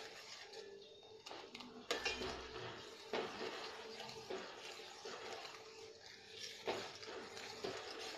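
Metal spoon stirring cooking jam in a stainless steel pot, scraping round the pot and clinking against its side now and then.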